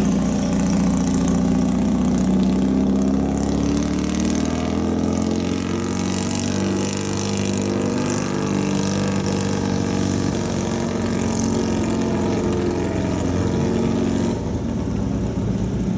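Engine of a 1968 Fiat 500 Corsa race car running loud and fairly steady, its note shifting a little up and down.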